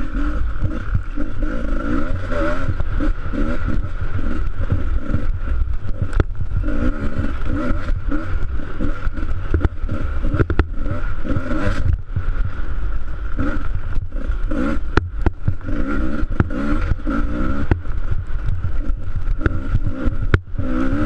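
Dirt bike engine revving up and down as the bike is ridden, heard close up from a camera mounted on the bike, with scattered sharp knocks.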